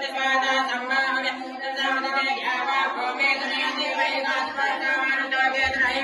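Hindu puja mantras chanted aloud in a continuous recitation without pauses.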